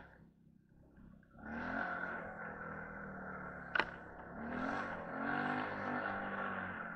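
TGB 550 quad bike's engine running under throttle. It starts faint and swells about a second and a half in, its pitch rising and falling with the throttle, with a sharp click about four seconds in.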